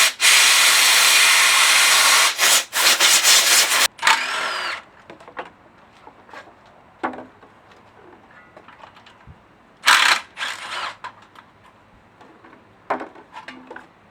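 Compressed air hissing from a blow gun against a brake caliper: one long blast of about four seconds, then two short blasts about ten seconds in.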